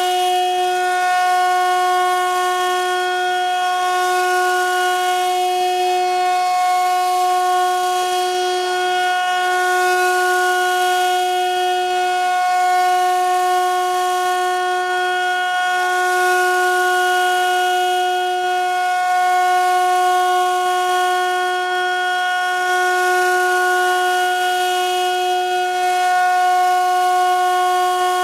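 Home-made CNC mill running during its first test: a loud, steady high-pitched whine with many overtones. The lowest note of the whine dips briefly about every three seconds.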